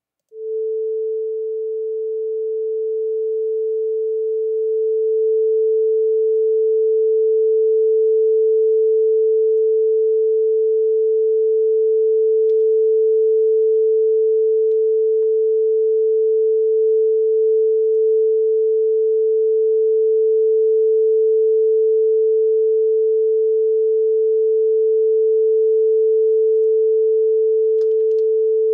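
Steady 440 Hz sine tone from an online tone generator, played as a calibration reference for a sound sensor. It starts just after the beginning, grows louder over the first few seconds, then holds steady.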